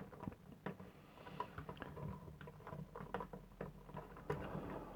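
Faint, scattered small clicks and light rattling of a plastic action figure and its add-on parts being handled.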